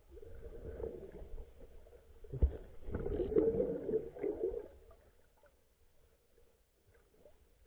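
Muffled underwater sloshing and gurgling of water. A sharp thump comes about two and a half seconds in, and the water noise is busiest just after it, then falls much quieter for the rest.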